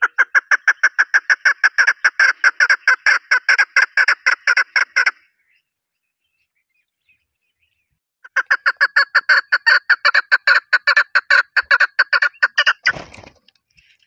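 Chukar partridge calling: a rapid run of repeated clucking 'chuk' notes, about five a second, in two bouts of roughly five seconds each with a pause of about three seconds between them. A brief low noise follows near the end.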